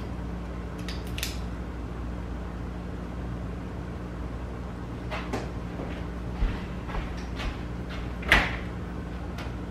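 A few light clicks and taps from small handling, then a refrigerator door pulled open with a sharp knock near the end. A steady low hum runs underneath.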